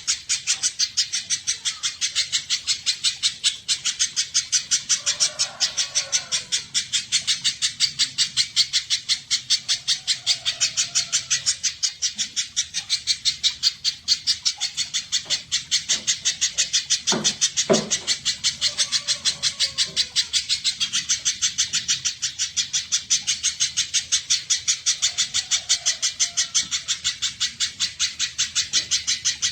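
Spiderhunter (pijantung) calling: a fast, even series of sharp high chips, about five a second, kept up without a break.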